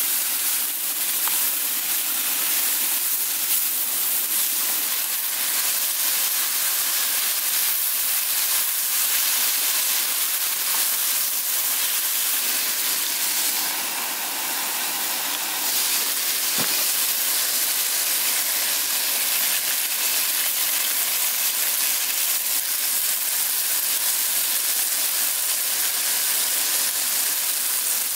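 Mushrooms cooking in a frying pan on a gas stove, with a steady sizzling hiss. A single sharp click comes about 17 seconds in.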